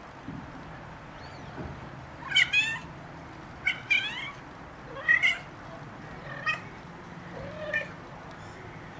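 Three-week-old Ocicat kittens mewing: a series of about five short, high-pitched mews, some in quick pairs.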